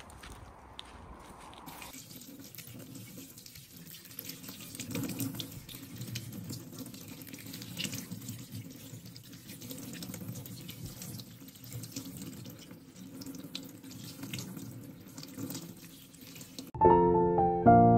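Kitchen tap running into a stainless steel sink as a bunch of fresh coriander is rinsed under it by hand, water splashing over the leaves and stems. It starts about two seconds in. Piano music comes in loudly near the end.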